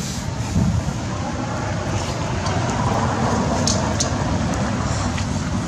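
Wind buffeting the microphone, a steady low rumble with a few faint clicks near the middle.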